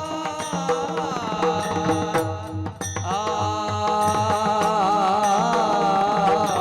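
Warkari kirtan chal music: a voice sings a long, wavering held melody over a steady rhythm of mridang drum strokes.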